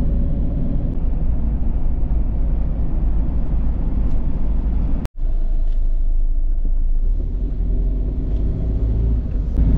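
Steady engine and road rumble inside the cab of a 2009 Fiat Ducato camper van driving on a paved road, with a brief dropout at a cut about five seconds in.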